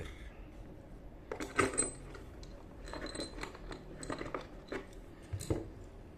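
Clicks and light metallic clinks of small parts and packaging being handled, in three short clusters, one with a brief bright ring.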